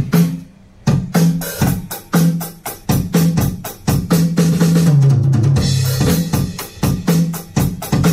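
Drum kit played at full loudness in a fast, busy pattern of bass drum, snare and cymbal hits, with a low sustained note running underneath.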